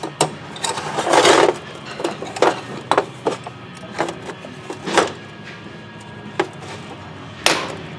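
Irregular sharp knocks and two short rattling bursts from an impact tool working on a Loctited Allen bolt in a Yamaha YZ250 cylinder. The bolt head is starting to strip.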